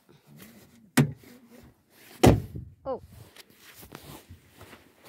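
Car door shutting with a heavy thump a little after two seconds in, after a sharper knock about a second in. Then a short squeak and light steps in fresh snow.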